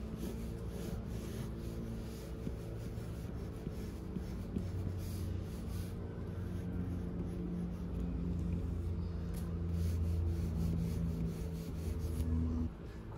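Clutch pencil lead scratching on paper in short repeated strokes, drawn on a clipboard. Under it runs a low steady hum that grows louder in the second half and cuts off suddenly near the end.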